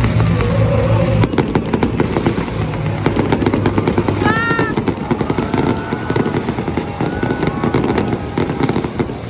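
Aerial fireworks crackling: a dense, rapid run of sharp pops and bangs starting about a second in, with a few voices over them. Background music plays briefly before the crackling takes over.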